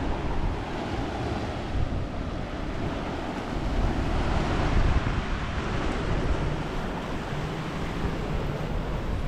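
Sea surf washing onto a beach, with wind buffeting the microphone in a heavy low rumble. A faint low hum comes in near the end.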